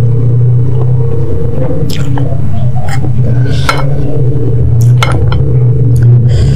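Close-miked chewing of instant noodles, with a few sharp clicks of a wooden spoon against a ceramic bowl, over a loud steady low hum.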